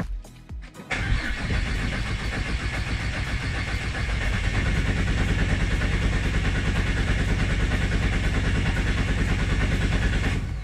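Ford FGX Falcon's straight-six cranking on the starter for about nine seconds without catching, starting about a second in. The new fuel pump is wired in reverse and gives no fuel pressure.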